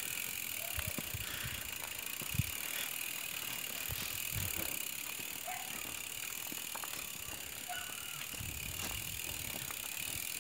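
Mountain bike's rear freehub clicking steadily as the bike is pushed along on foot: a loud ratcheting hub buzz, with a few soft knocks.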